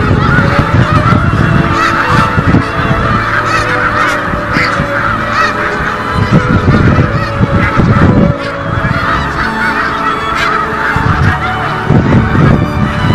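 A large flock of snow geese calling together: a dense, continuous chorus of overlapping honks, over a low rumble.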